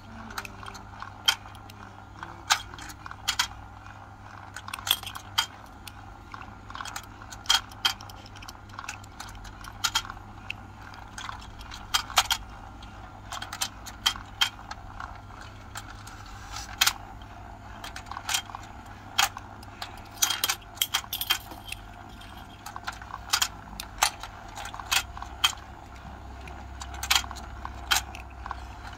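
Hard plastic fish pieces clicking and clacking as they are set one by one into the holes of a plastic toy fishing-game board: irregular sharp clicks, often a second or so apart and sometimes in quick pairs, over a steady low hum.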